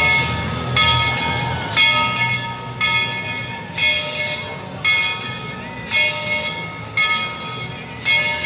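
Steam locomotive's bell ringing steadily, struck about once a second with each stroke ringing on into the next, over a low rumble from the train.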